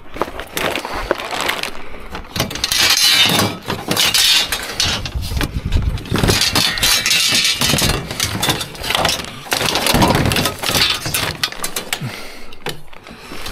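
Scrap metal pieces clattering and clanking as they are picked up and carried, in dense runs of knocks and rattles that are loudest through the middle.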